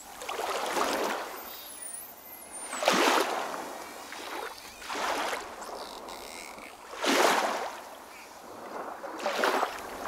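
Water sloshing and lapping in repeated surges, one about every two seconds.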